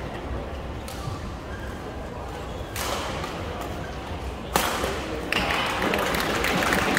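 Badminton rally: sharp racket strikes on the shuttlecock every second or two, the loudest about four and a half seconds in, over a murmur of voices in a large hall. Crowd noise rises over the last second or two.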